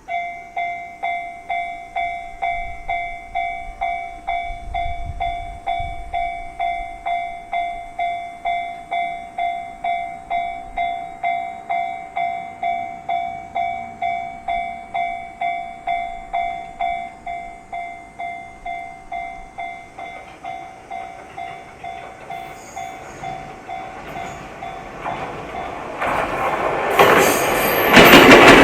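Japanese level-crossing warning bell ringing its steady "kan-kan" tone about twice a second, growing fainter after about twenty seconds. Near the end a train arrives loud, its wheels clacking over the rail joints as it passes the crossing.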